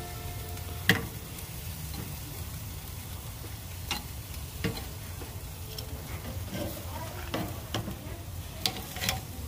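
Meat sizzling on a charcoal grill: a steady hiss with a few sharp pops of fat at irregular intervals, the loudest about a second in.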